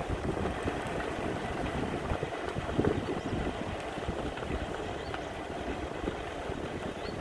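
Wind buffeting the microphone, an uneven low rumble.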